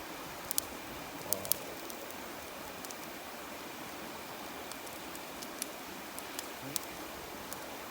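Campfire crackling, with sharp pops scattered through it, over the steady rush of a flowing river.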